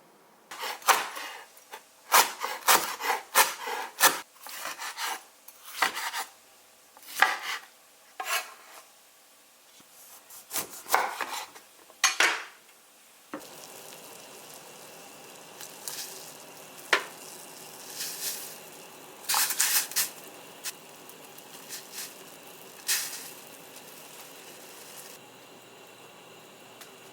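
Kitchen utensils and dishes being handled while preparing food: a run of short, irregular scraping and clattering strokes. About halfway through a steady hiss comes in, with only occasional clinks and scrapes over it.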